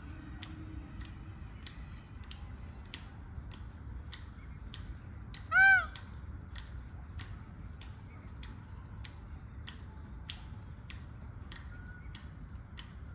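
Indian peafowl giving one short, loud call about halfway through, its pitch rising and falling. Under it a regular ticking repeats a little under twice a second.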